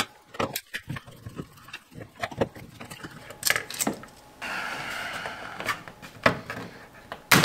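An old plastic thermostat backplate is taken apart by hand and pulled off the wall: scattered clicks and taps of hard plastic parts, a rubbing scrape for a couple of seconds from about halfway through, and a sharp snap near the end.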